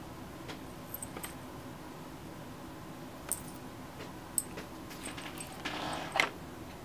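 A few light clicks and taps as a makeup brush and a cardboard eyeshadow palette are handled, then a short soft rustle near the end, over a faint steady hum.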